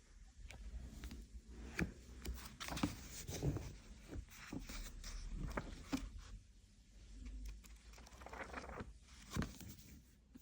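Irregular rustling and crinkling of paper, like book pages being handled or pawed at, with scattered light taps and clicks.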